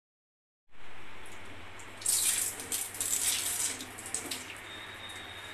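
Water running and splashing in a wash basin, with a spell of brighter, crackling splashes in the middle, after a brief silence at the start.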